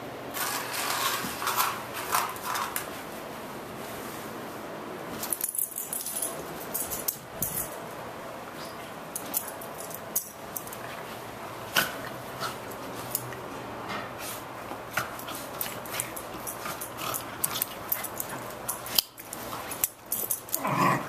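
A beagle and a cat play-fighting: scuffling, scratching and clicking as they tussle, with short vocal sounds from the beagle, about a second or two in and again near the end.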